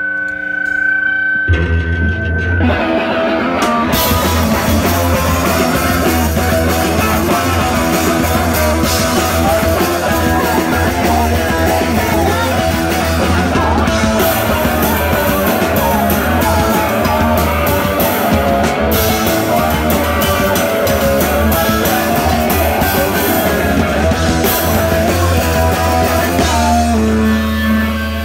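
Punk rock band playing live and loud: distorted electric guitar, bass and drum kit. A held guitar tone rings first, the full band comes in about a second and a half in, and it stops near the end, leaving held notes ringing.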